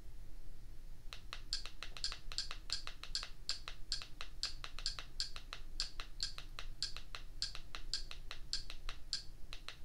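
Evenly spaced clicks, about three a second, starting about a second in, as the Kodi video add-on list is scrolled one item at a time.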